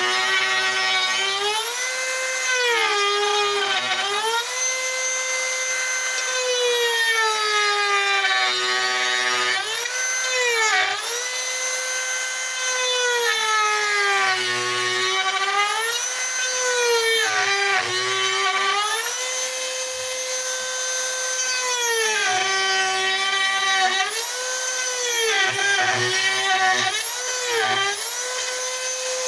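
High-speed rotary carving tool cutting grooves in wood. Its motor whine repeatedly drops in pitch as the bit bites into the wood and rises back when it eases off, with a rough rasp of wood being cut during the loaded stretches.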